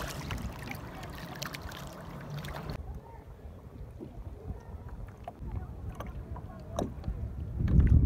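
Water lapping and splashing around a small kayak, with light paddle and water ticks. The character changes abruptly about three seconds in, and a loud low buffeting of wind on the microphone comes near the end.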